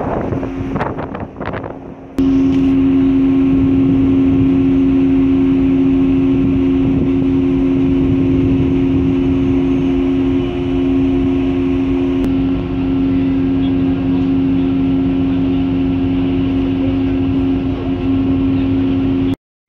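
Steady drone of ship engines and machinery holding two constant low tones. It cuts in abruptly about two seconds in, after a few seconds of wind buffeting the microphone, and drops out briefly near the end.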